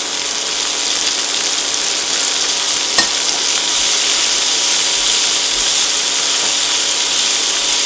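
Onion, green onion and cherry tomatoes sizzling in hot oil in a nonstick wok while being stir-fried with a silicone spatula: a steady frying hiss, with a single sharp tap about three seconds in.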